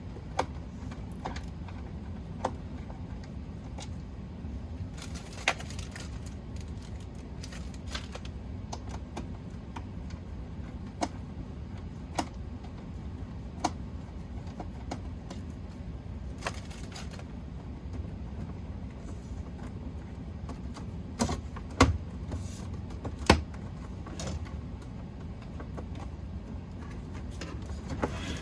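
Scattered clicks and knocks of plastic casing parts and small screws being handled while a Keurig K150P coffee maker is taken apart, the sharpest two about three-quarters of the way through, over a steady low hum.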